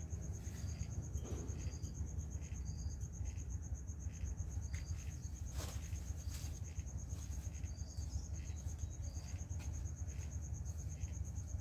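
Insects trilling: a steady, rapidly pulsing high-pitched trill, with short higher chirps every second or so. A steady low rumble runs underneath, with a few faint ticks, the sharpest about halfway through.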